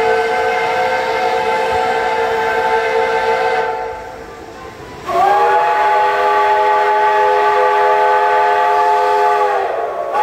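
Locomotive horn sounding two long blasts of several notes at once, each about four seconds with a short pause between, and a third starting at the very end: the train's departure signal.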